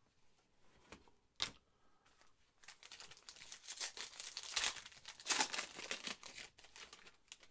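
Foil wrapper of a trading-card pack being torn open and crinkled: a single click about a second and a half in, then about four seconds of crackling tearing and crumpling.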